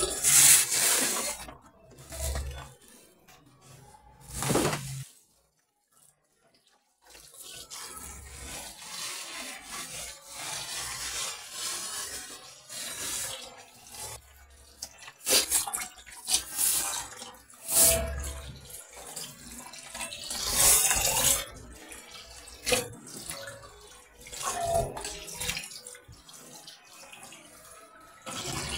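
Water from a kitchen tap running and splashing into a plastic basin while whole fish are rinsed by hand, with irregular louder splashes and sloshing. The sound drops out briefly about five seconds in.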